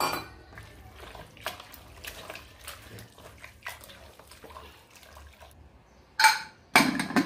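Wet squelching and sloshing of a hand mixing watered mutton masala inside an aluminium pressure cooker, in many small quick strokes. A few loud metal clanks near the end.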